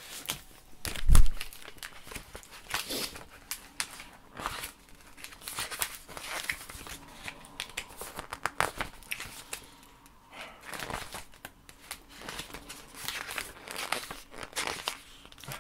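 Rustling and crinkling of a paper booklet's pages being leafed through and a packaged snack's wrapper being handled, in many short crackles, with a dull thump about a second in.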